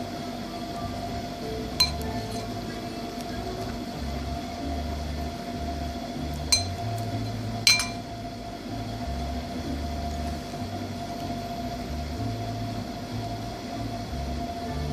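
Glass dish clinking three times while cream is eaten from it: once about two seconds in, then twice close together near the middle. Each clink is sharp and rings briefly, over a steady low hum.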